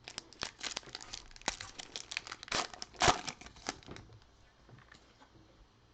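Foil trading-card pack wrapper being torn open and crinkled by hand, a dense crackling rustle that dies down after about four seconds.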